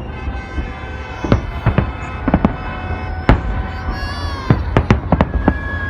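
Fireworks salute going off: about eight sharp bangs at irregular spacing over a continuous low rumble of bursts.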